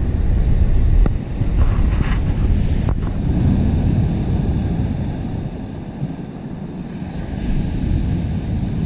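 Heavy wind buffeting the microphone over breaking surf, with a loud, gusty low rumble that eases slightly near the end.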